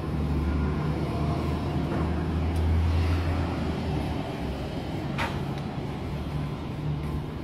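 A low, steady engine hum, with one sharp click about five seconds in.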